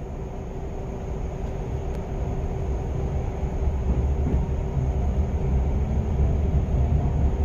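Cabin sound of a JR Central 373 series electric train pulling away from a station: a low rumble with a steady hum that grows louder as the train gathers speed.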